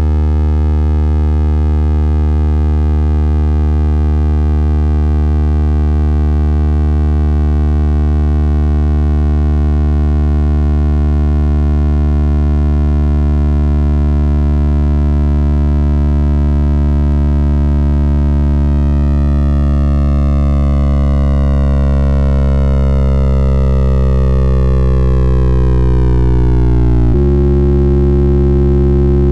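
Computer-synthesized drone of many stacked sine-like tones, each generated from the outline of a circle on screen (smaller circles give higher pitches). About two-thirds of the way through, the upper tones begin gliding downward and crowding together, then the chord switches suddenly to a new set of tones about two seconds before the end.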